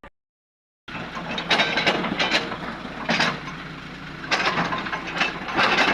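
Excavator working rock in a quarry: a steady diesel engine hum with repeated loud crunching and scraping bursts of stone, starting about a second in after a brief silence.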